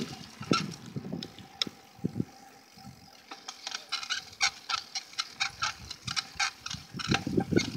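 Bicycle being ridden over pavement: a few sharp clicks early on, then a fast run of clicks and rattles from about three seconds in, with rougher rumbling noise rising near the end.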